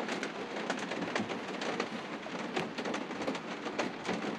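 Heavy rain pattering hard on the roof, heard from inside as a dense, even patter of drops.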